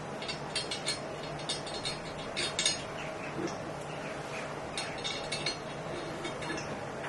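Small parts of a caster wheel and its metal fittings being handled and fitted: irregular light clicks and clinks in little clusters, the sharpest about two and a half seconds in, over a steady low hum.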